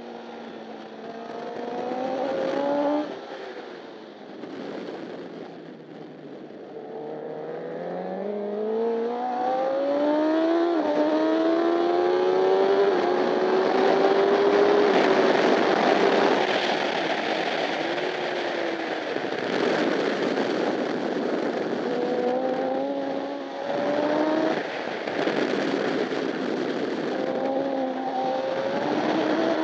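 Honda CBR1000RR's inline-four engine heard onboard at racing speed. It revs up through the gears, its pitch climbing and dropping back at each upshift, with wind rushing past loudest at top speed midway. It then runs at lower, varying revs towards the end.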